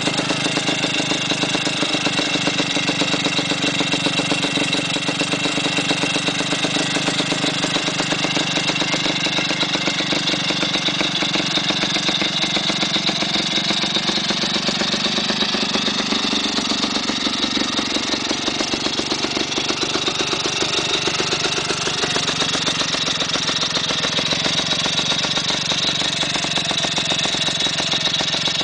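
Griffon 125 motorcycle's single-cylinder engine idling steadily with a rapid, even firing beat. Its speed wanders slightly around the middle.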